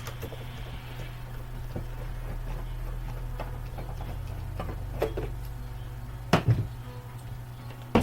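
Small clicks and knocks of hard plastic computer parts being handled during disassembly, with a sharper knock about five seconds in and two louder knocks about a second and a half later, over a steady low hum.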